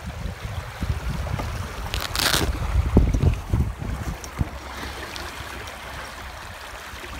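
Wind rumbling on the microphone over water splashing against a moving canoe and its foam-float stabilizers, with a brief rush of noise about two seconds in and a few knocks on the hull around three seconds.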